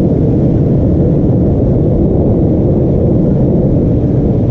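Sport motorcycle riding along a gravel road, its engine running steadily under a dense, constant low rumble.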